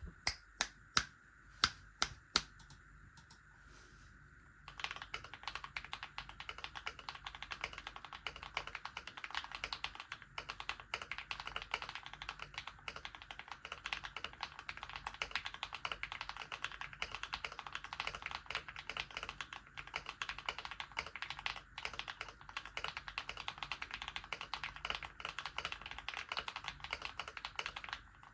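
GMMK White Ice Edition TKL mechanical keyboard with lubed and filmed KTT Mallo linear switches on 30 g springs, tape-modded and foam-filled, with AKKO keycaps: a handful of single keystrokes, then from about five seconds in continuous fast typing.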